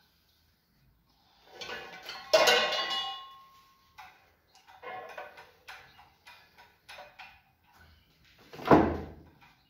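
Metal tools and torch gear clattering on a steel workbench as they are picked up and handled: a loud jumble of clanks about two seconds in, one part ringing on briefly, then a run of lighter knocks and one heavier knock near the end.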